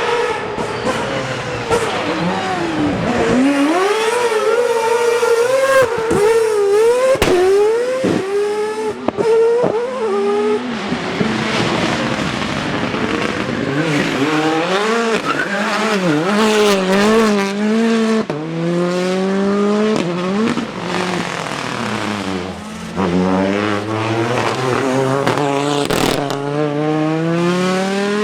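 Rally car engine revving hard, its pitch climbing and dropping again and again as it accelerates, shifts gear and lifts off the throttle, with tyre noise from the car sliding. A few sharp cracks come in the first half, and near the end the engine pulls up steadily from low revs.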